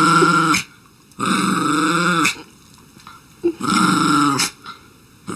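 A dog giving long, drawn-out vocal calls, about a second each, three times with short pauses between them.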